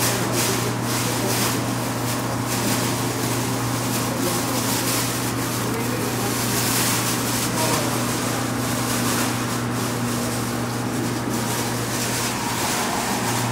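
Electric motor of a Yamato soba-making machine running with a steady low hum, just switched on at the control panel.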